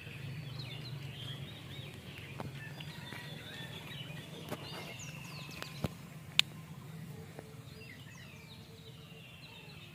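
Small birds chirping and twittering over a steady low hum, with a few sharp clicks.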